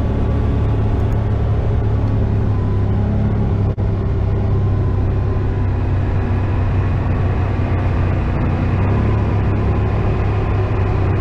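ATV engine running steadily under way on a trail, a continuous low drone with a haze of wind and tyre noise.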